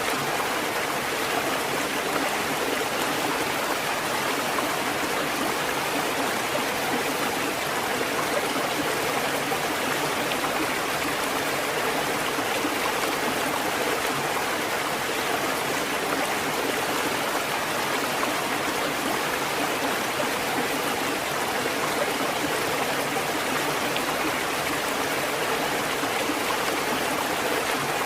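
Water fountain running: a steady, unbroken rush and trickle of falling water, even throughout.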